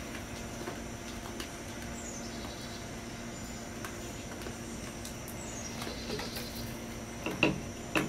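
A deer eating corn from a plastic bucket, with scattered faint crunches and clicks, over a steady insect drone and a couple of short bird chirps. A sharp knock comes about seven and a half seconds in.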